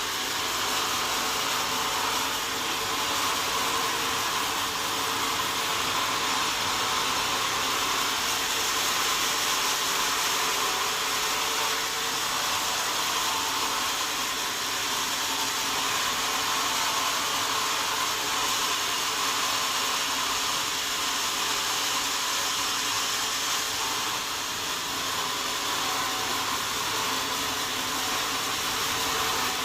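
Sawmill saw running steadily through wood: a constant hiss with a faint low hum beneath, holding level throughout.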